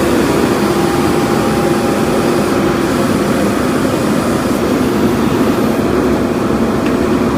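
JCB backhoe loader's diesel engine running steadily, an even, unbroken engine noise with a faint steady hum in it.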